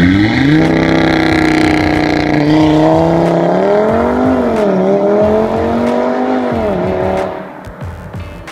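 Audi RS3's turbocharged inline five-cylinder engine on a hard launch from standstill, revs rising sharply and then climbing with two sudden dips in pitch as the gearbox shifts up. The sound fades near the end as the car pulls away.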